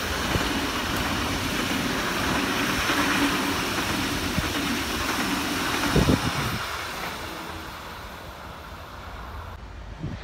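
DB class 423 S-Bahn electric multiple unit passing close by: a steady rush of wheels on rail with a low hum from its electric drive, loudest about six seconds in where there is a brief thump as the last car goes by, then fading away.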